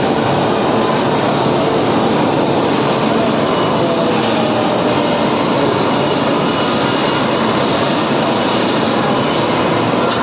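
Loud, steady industrial machinery noise that runs without a break, with a faint hum of steady tones under the noise.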